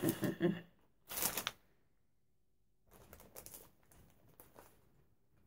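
Plastic craft packets rustling and crinkling as they are handled: a short crinkle about a second in, then faint scattered rustles and light taps.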